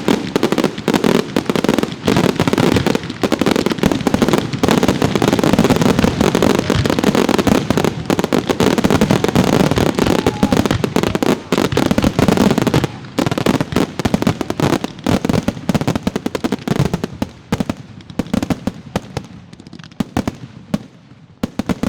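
Dense barrage of fireworks: rapid overlapping bangs and crackling with a low rumble. About thirteen seconds in it thins out into scattered cracks that die away near the end.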